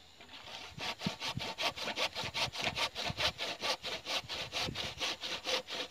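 Hand saw cutting through a thin wooden pole in quick, even back-and-forth strokes, about four or five a second, starting about half a second in.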